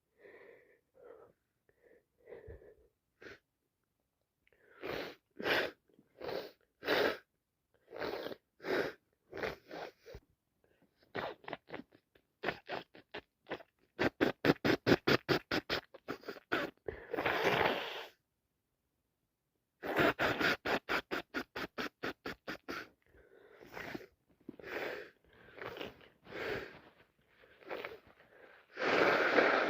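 A person with a wet head cold sneezing again and again, with quick gasping breaths in fast trains building up between the sneezes. A long, strong sneeze comes near the end.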